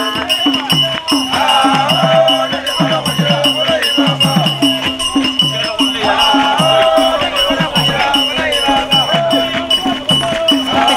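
Isikuti music: drums beating a steady rhythm with rattles and shakers, and voices singing over it.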